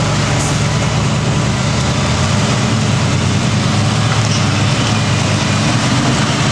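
Off-road Jeep's engine running steadily at low revs.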